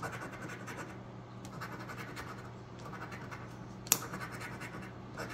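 A coin scraping the scratch-off coating from a paper lottery ticket in quick repeated strokes, with one sharp click about four seconds in.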